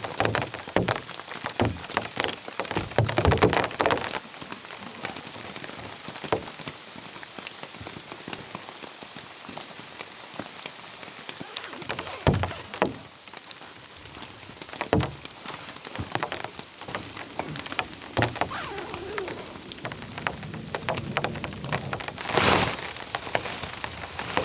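Steady rain falling, with many scattered sharp taps and knocks and a louder burst of rustling about 22 seconds in.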